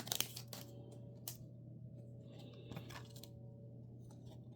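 Soft scattered clicks and taps of trading cards being handled and flipped through, a cluster of them at the start, over a low steady hum.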